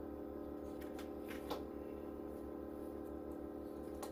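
Steady hum of a machine running in the room, made of several constant tones. A few short paper rustles or clicks stand out about one to one and a half seconds in.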